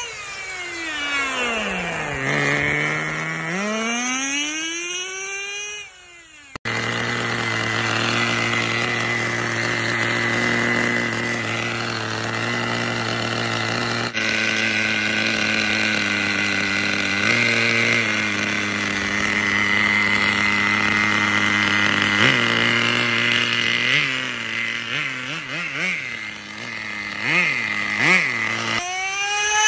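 Race car engine sound effect. In the first six seconds the engine pitch falls and then rises again. It then settles into a steady running drone that steps up and down in pitch, and revs rapidly up and down near the end.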